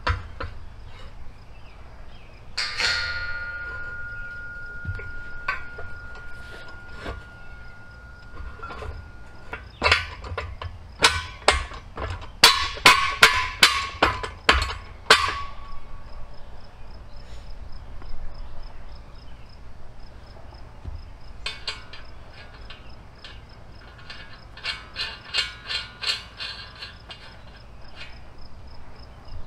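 Steel beam and bracket of a homemade solar panel pole mount clanking: one knock leaves a ringing tone that hangs on for several seconds, then a quick run of loud, sharp metal knocks about halfway through, and a lighter cluster of knocks near the end.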